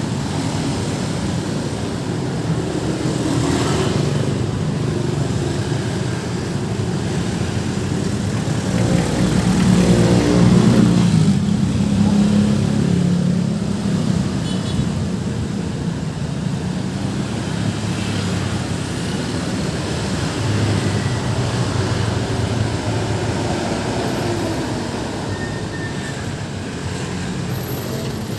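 Road traffic passing, with a steady engine and tyre rumble. About ten seconds in, one vehicle passes close, its engine swelling and then fading, with the pitch dropping as it goes by.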